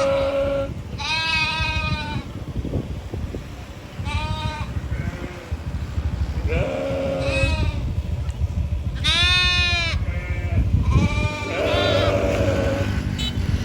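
Sheep bleating: about seven separate wavering bleats, each up to about a second long, over a steady low rumble.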